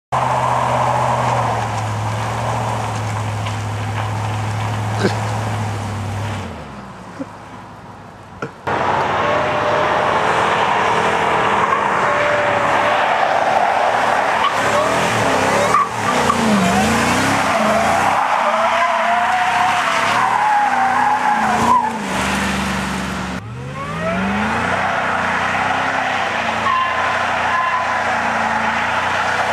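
Ford Lightning pickup's V8 running steadily, then a burnout from about nine seconds in: the engine revs hard, rising and falling, while the rear tyres spin and squeal. A brief let-up comes near the 23-second mark, then the burnout carries on.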